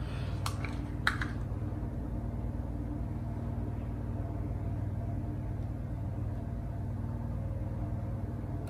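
A steady low machine hum that holds an even pitch throughout, with two brief soft clicks in the first second or so.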